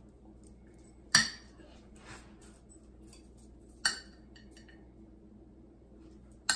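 A table knife clinking against a ceramic plate as it cuts through soft chocolate, in three sharp clinks: about a second in, near the middle, and at the end.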